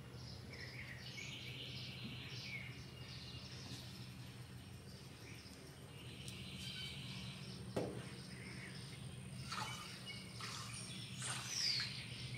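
Birds chirping and singing in the background over a steady low hum. In the second half come a few light knocks as a salt canister and a plastic funnel are handled at a plastic garden sprayer.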